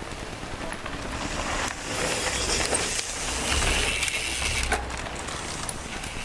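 Mountain bikes rolling past on a dirt trail, their knobby tyres running over the packed dirt of a hump roller. The sound swells to its loudest about halfway through as two riders pass, then fades.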